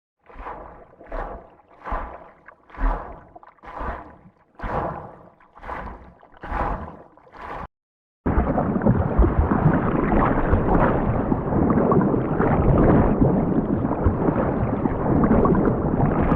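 Water sloshing in a series of about eight surges, roughly one a second. After a brief break, water rushes and gurgles continuously.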